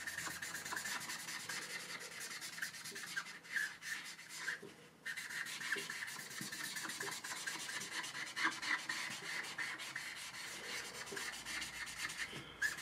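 Black marker pen scribbling rapidly back and forth on flip-chart paper to fill in a solid shape, a scratchy rubbing with a short pause about five seconds in.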